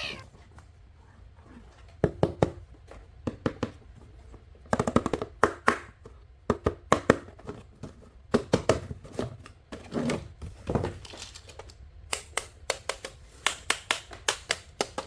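Small hard objects being handled by hand, most likely plastic toy vehicles or their packaging: irregular runs of short clicks and knocks, with a few louder taps about two, five and seven seconds in and a quick series of clicks near the end.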